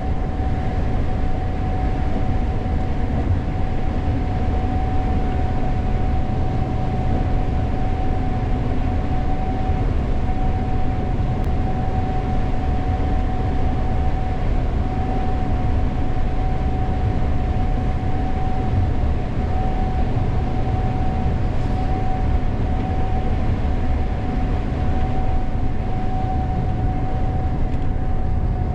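Gleaner S98 combine running while harvesting corn: a steady low machinery rumble with a constant high whine over it.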